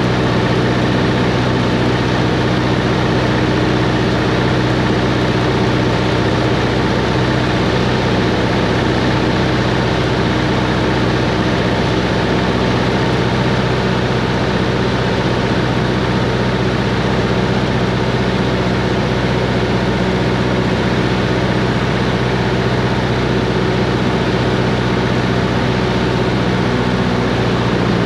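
Cessna 140's single piston engine and propeller running at a constant, steady drone, heard from inside the cockpit.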